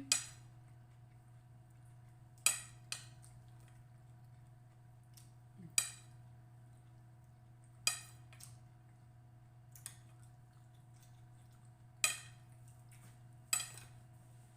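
Cutlery clinking against plates during a meal: about seven sharp, separate clinks a second or two apart, over a faint steady hum.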